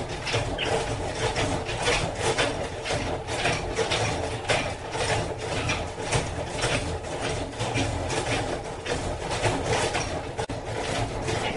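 Honey extractor running: a steady hum with a constant rapid, irregular clicking and rattling from its gears and moving parts.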